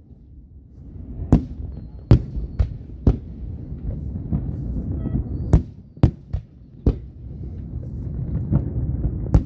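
Aerial fireworks exploding: a run of about nine sharp bangs at irregular intervals over a low, rolling rumble.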